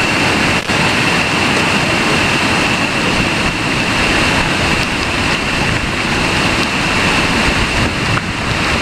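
Whitewater rapid rushing over boulders: a loud, steady roar of churning water.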